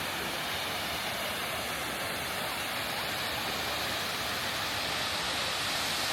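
Steady rushing of fast-flowing water, a mountain stream or waterfall, as an even, unchanging hiss-like roar.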